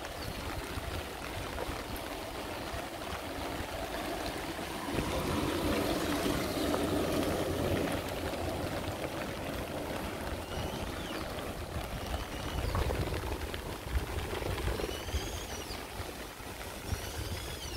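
Steady rain with water running and trickling, likely runoff in a gutter or drain, swelling louder for a few seconds about a third of the way in. A few short, high, sliding chirps come in the second half.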